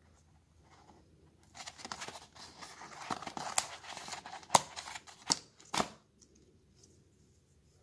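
Handling of an earphone box: rustling and scraping as a neckband earphone and its cable are pulled from the box's insert tray, with four sharp clicks of plastic on the box. It starts about a second and a half in and stops about six seconds in.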